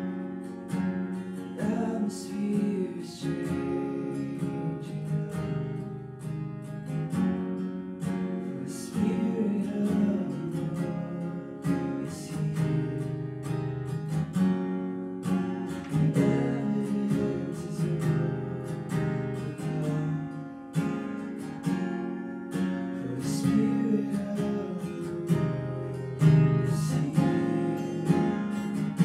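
A man singing a slow worship song while strumming chords on an acoustic guitar.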